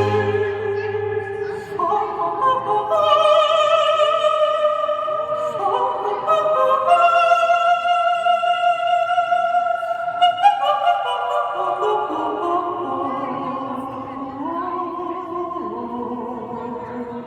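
Popera song performed live: operatic singing over sustained orchestral backing, long held chords changing every second or two and fading toward the end.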